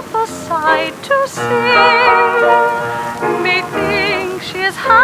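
A high voice, most likely a woman's, singing a slow parlour-song melody in an operatic style with wide vibrato, over held accompaniment notes.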